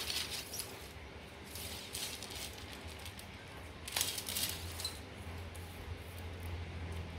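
Handling noise from a carbon fishing rod and a small hand-held hanging scale: short rustles and scrapes, the loudest about four seconds in, over a low steady hum.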